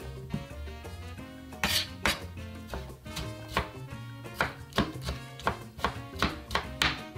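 Chef's knife chopping tomatoes on a plastic cutting board: a run of sharp knocks, irregular and about two to three a second, over background music.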